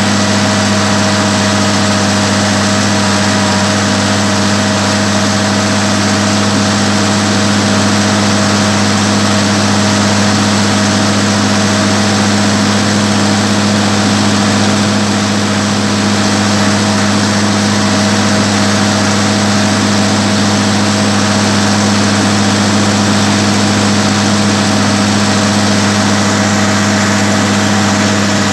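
Massey Ferguson 399 tractor's six-cylinder diesel engine running steadily at a constant speed as the tractor drives along, heard close up from the driver's seat.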